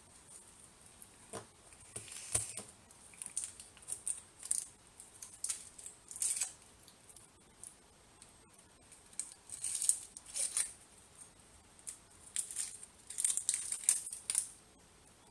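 A hand squeezing and kneading a raw ground-meat meatball mixture in a plastic bowl: irregular wet squelches and squishes in bursts, with short pauses.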